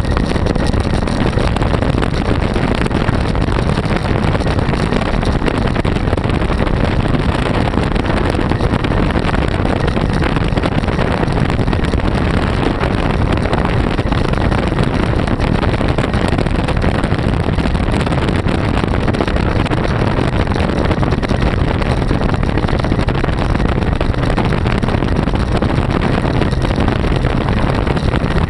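350 Chevy small-block V8 running at a steady cruise, heard from the seat of the open trike with wind buffeting the microphone.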